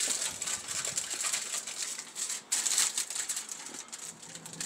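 Aluminium foil crinkling as it is folded and creased by hand into a sealed food packet, a dense run of small crackles.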